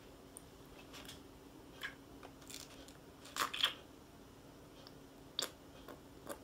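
Scattered light clicks and taps of small plastic pieces being handled in a plastic candy-kit tray, the loudest pair about three and a half seconds in. A faint steady hum runs underneath.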